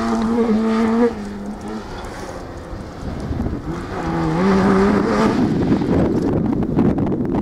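Rally car engine at high revs on a gravel stage. It holds a steady note, drops away about a second in, then returns with rising revs at about four seconds as the car accelerates. A loud rushing noise covers it for the last couple of seconds.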